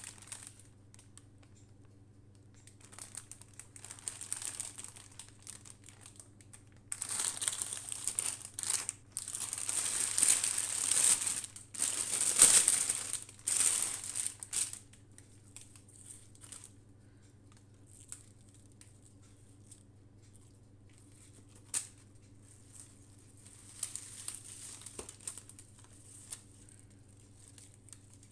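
Clear plastic produce bag crinkling as hands open it and pull out a bunch of leafy greens, in bursts, with the loudest and longest handling in the middle.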